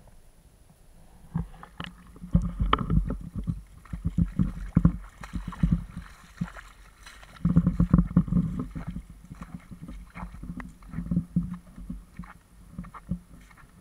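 Muffled water sloshing and knocking against an action camera's waterproof case as it is moved through a shallow tide pool, in three uneven bouts of rapid knocks, the loudest about eight seconds in.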